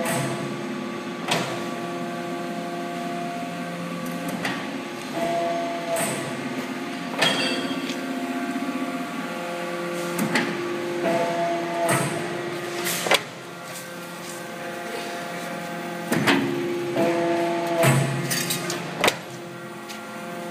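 ACCURL CNC hydraulic shearing machine running: a steady hum from its hydraulic drive with sharp knocks as the blade strokes. The pattern repeats in cycles roughly every six seconds.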